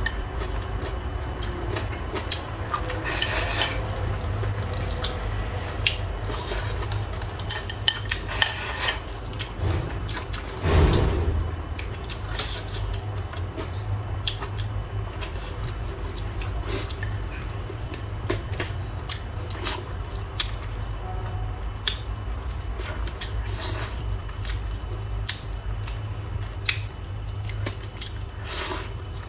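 Eating sounds: chopsticks and utensils clicking against bowls, with wet mouth and food sounds, over a steady low hum. A louder, longer eating sound comes about eleven seconds in.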